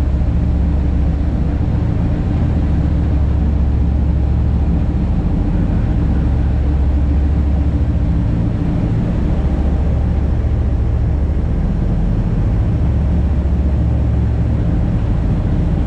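A fishing boat's engine running steadily at cruising speed, a constant low drone over the rush of the wake water.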